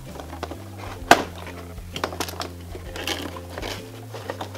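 Cardboard toy box with a plastic window being handled and pried open: crinkling and a series of sharp clicks and knocks, the loudest about a second in.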